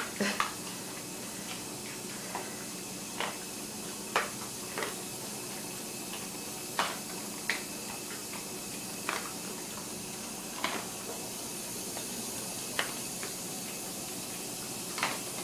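Two dogs eating dry kibble off a tile floor: short sharp clicks a second or two apart as pieces are picked up and chewed, over a steady hiss.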